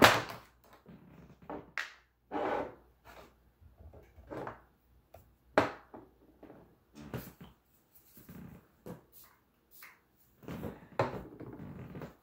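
Makeup being handled: a sharp click at the start, then irregular small taps, knocks and short brushing rustles as an eyeshadow palette and brush are worked.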